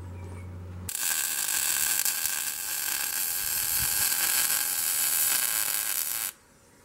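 Wire-feed (MIG) welder arc crackling steadily as a steel tab is welded onto a steel frame. It starts about a second in and cuts off abruptly near the end.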